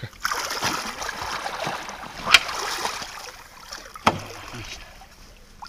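Shallow water sloshing and splashing as someone moves through it, with two sharp knocks, a loud one a little over two seconds in and another about four seconds in.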